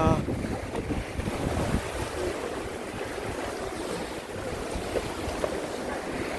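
Sea surf washing against a rocky shore, with wind buffeting the microphone in uneven low gusts.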